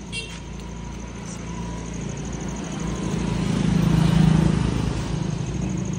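Scooter engine running steadily, swelling louder about four seconds in, then easing back.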